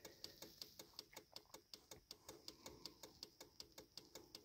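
Faint, even ticking, about seven ticks a second.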